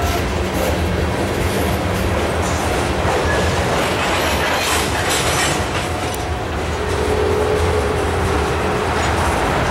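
Loaded limestone hopper cars of a freight train rolling past: a steady rumble with wheels clacking over rail joints. A faint wheel squeal comes in about seven seconds in.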